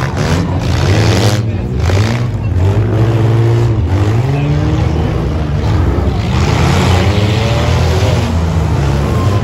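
Several demolition derby cars' engines revving hard together, their pitch repeatedly rising and falling as they accelerate and back off.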